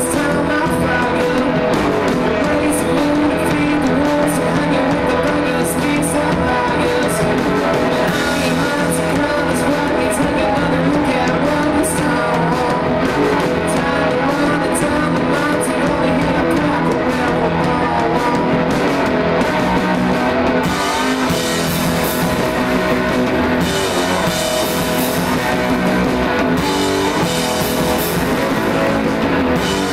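Live rock band playing loud: distorted electric guitar over a drum kit, with regular cymbal strikes. About two-thirds of the way through, the drums shift to heavier, sustained cymbal crashes.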